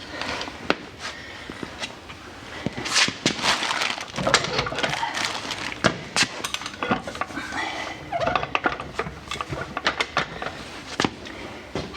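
Irregular metal clicks, knocks and scraping as a manual transmission is worked onto the engine by hand and jack.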